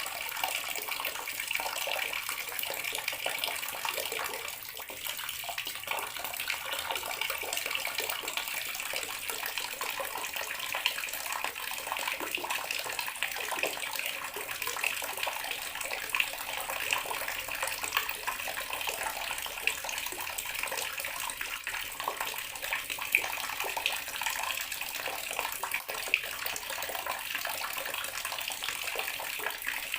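Bathroom water tap running steadily, water splashing into a basin or tub with small irregular spatters.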